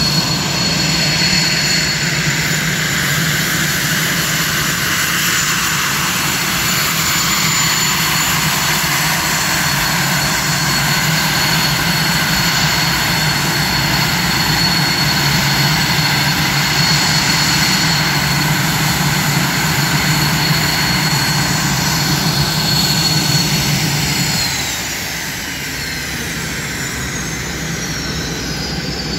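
Twin General Electric J85 turbojets of a Marine F-5N fighter running at idle on the ramp: a steady jet rumble with a constant high whine. About 24 seconds in, the sound eases and the whine falls in pitch.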